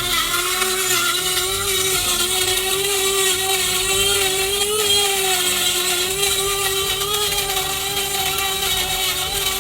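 Krups F203 electric blade coffee and spice grinder motor running steadily, chopping garlic cloves with a little water: a steady, loud whine whose pitch wavers slightly as the load shifts.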